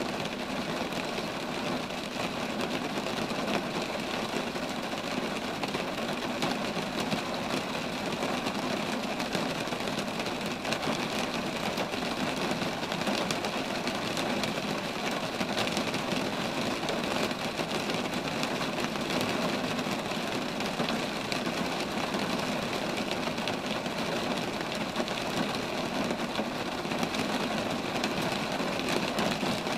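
Steady rain falling on roadside trees: an even, dense patter of drops with no change in strength.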